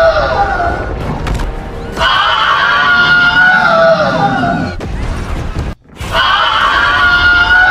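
The Wilhelm Scream sound effect, a man's short pained scream, played again and again: one copy tails off just after the start, another runs from about two seconds in, and a third starts about six seconds in, each sliding down in pitch at its end. Under it runs a film soundtrack's low rumble and music, with a brief dropout just before the third scream.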